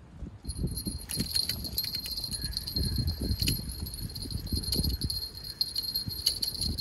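A bell on a carp fishing rod jingling continuously while a hooked carp is played and landed, with irregular low knocks from handling the rod and reel. The jingling starts suddenly about half a second in.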